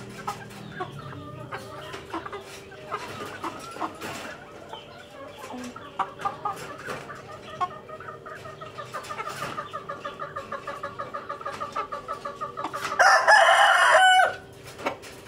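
Roosters clucking in short calls that quicken into a fast run of about five clucks a second. Near the end one rooster crows once, loudly, for about a second.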